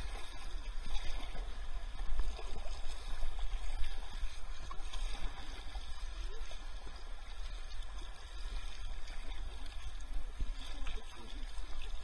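Kayak paddles dipping and splashing in river water as the boat is manoeuvred, over a steady low rumble on the microphone.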